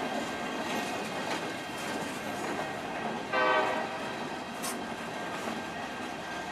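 Intermodal freight cars rolling past, a steady rumble with some clacking of wheels over the rail. About three seconds in, a train horn sounds one short blast.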